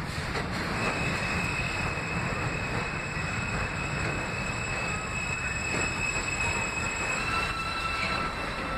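An R160A New York City Subway train pulls in and brakes toward a stop: a steady rumble of steel wheels on rail with a high squeal. The squeal drops to a lower pitch about seven seconds in as the train slows.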